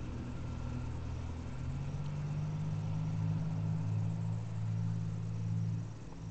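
GWS Formosa RC plane's motor and propeller droning steadily overhead. The pitch steps up about one and a half seconds in and dips briefly near the end.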